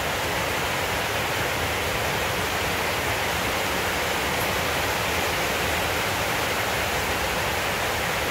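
A steady, even rushing noise at a constant level, with no distinct knocks or calls.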